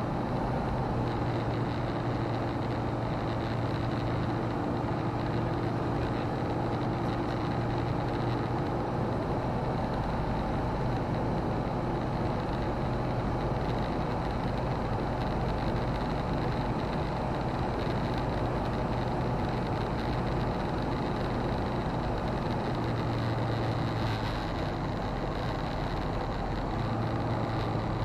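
Roland Aircraft Z602 ultralight's engine and propeller running steadily in flight, heard from inside the cockpit as a constant drone with a high whine on top. The level drops slightly for a few seconds near the end.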